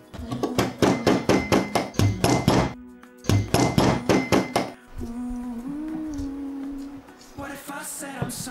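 A wood chisel struck with quick, evenly spaced hammer blows, about five a second, chopping a mortise into a wooden board: two runs of strikes with a short pause between. Soft background music follows for the second half.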